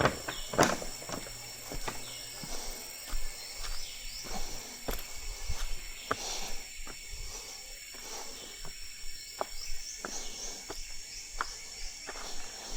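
Footsteps, irregular knocks about one to two a second, over a steady high buzz of insects with short repeated chirps.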